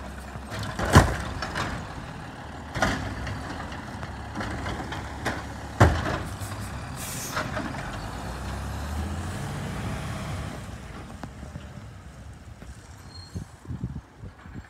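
Diesel garbage truck running at the curb, with two loud sharp bangs, one about a second in and one near the middle. A brief air-brake hiss follows, then the engine rises as the truck pulls away, and the sound fades with a few light knocks near the end.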